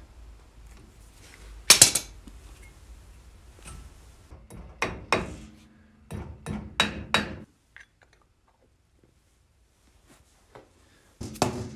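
A hammer tapping a grease cap onto the front wheel hub of a disc-brake rotor: a series of sharp metal taps in small groups, some ringing briefly, then a pause and a couple more taps near the end.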